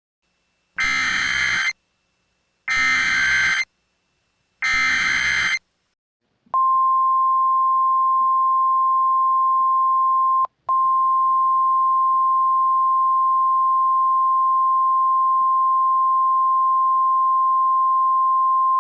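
Emergency Alert System SAME header: three one-second data bursts, about a second apart, that mark the start of a new alert. They are followed about six and a half seconds in by the NOAA Weather Radio 1050 Hz warning alarm, one steady single-pitched tone, which drops out for a split second about ten seconds in.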